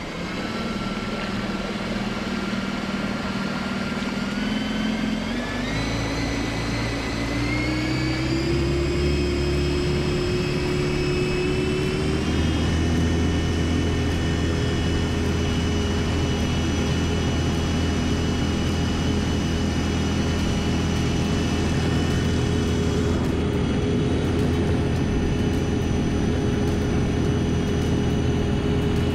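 The foam boat's 6000 W electric motor whines, its pitch climbing in steps over the first dozen seconds as the boat speeds up, then holding steady at speed. Water rushes under the hull beneath the whine.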